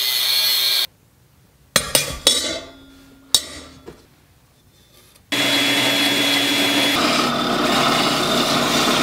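An angle grinder's cutoff wheel cuts through steel tube and stops just under a second in. A few sharp clicks and knocks of small steel pieces follow. Then, about five seconds in, a narrow bench belt sander starts grinding a small steel part and runs steadily, its pitch shifting slightly partway through.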